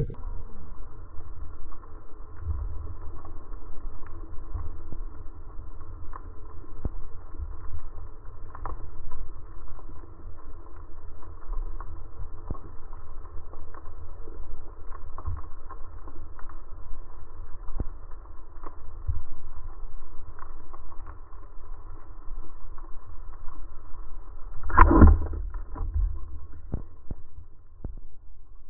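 Underwater sound through a camera housing: a low rumble of moving water and a faint steady hum, with scattered small clicks. About 25 seconds in comes one sharp, loud thump with a short ring as the wooden speargun is fired.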